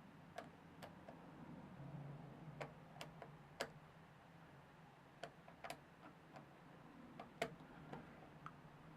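Faint, light clicks and taps, about a dozen, at irregular intervals over a low steady hum.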